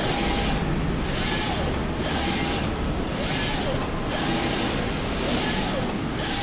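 UV flatbed printer's carriage with dual Epson DX5 printheads shuttling back and forth across the bed. Its drive motor whines up and down in pitch with each pass, over a hiss that swells and fades about once a second.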